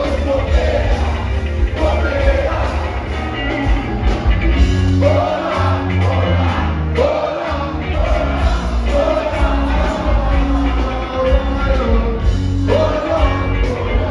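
Live rock band playing at full volume, with electric guitars, bass guitar and a drum kit, and a male lead singer singing over a strong bass line.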